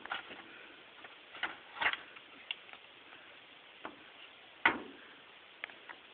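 A few scattered light knocks and taps, one at a time with quiet between, the loudest about a second and a half before the end.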